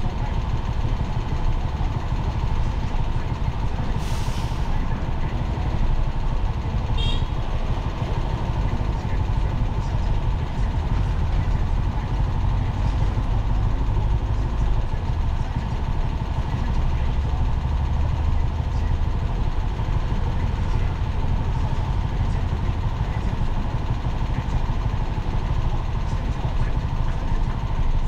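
Steady low rumble of city road traffic and vehicle running, with a short hiss about four seconds in and a few brief high chirps about seven seconds in.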